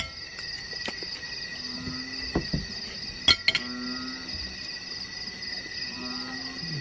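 Night insects chirping steadily in a high, finely pulsing trill, with a few light clinks of forks and spoons on plates, once about a second in and twice a little after three seconds.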